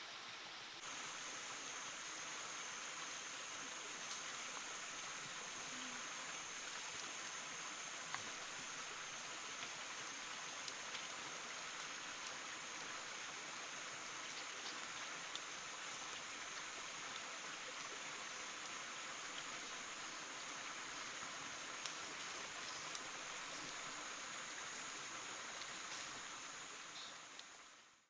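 Steady rush of flowing water, with a steady high-pitched whine over it from about a second in and a few faint clicks. It all fades out at the very end.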